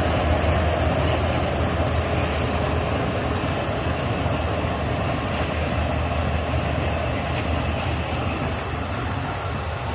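Diesel locomotive engine running with a steady low drone, mixed with the rumble of freight wagons rolling past on the adjacent track; the sound eases off slowly.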